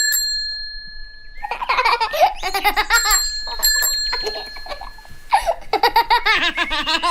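A bell-like chime rings twice, about three seconds apart, each time holding a steady tone for a second or more. High-pitched laughter breaks out between the chimes and again near the end.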